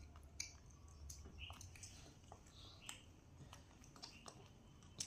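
Faint, scattered small clicks and soft mouth sounds of eating, as a baby monkey and a toddler pick at and chew steamed buns, over a low hum.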